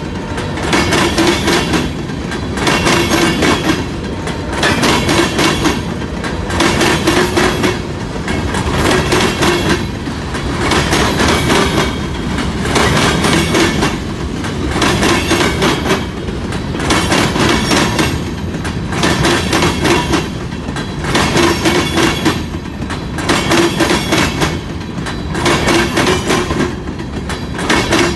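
Freight cars rolling past close by, their wheels clicking over rail joints in a loud pulse about every two seconds as each car's wheel sets go by.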